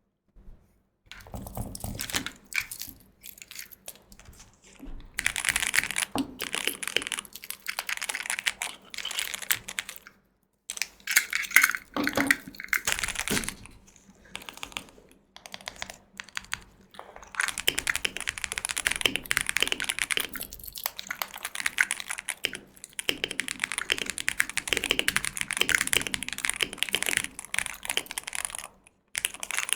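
Computer keyboard being typed on: fast runs of key clicks with short pauses between bursts of typing.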